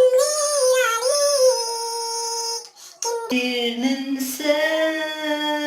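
A solo voice singing unaccompanied, drawing out long held notes with vibrato: a high note that wavers, a short break about three seconds in, then a lower note sung with ornamented turns.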